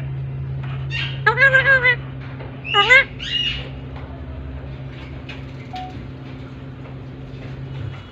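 Caged green parakeet calling: a quick run of about five calls about a second in, then two shorter calls around three seconds in. A steady low hum runs underneath and stops near the end.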